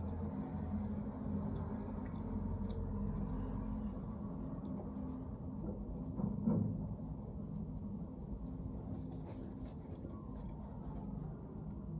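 Faint scratching and rubbing of fingertips lifting a glued lace-front wig from the hairline skin, over a steady low hum.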